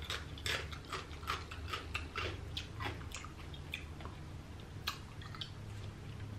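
Small irregular clicks and crackles, several a second, as a black-gloved hand picks cucumber slices out of a glass bowl of sauce.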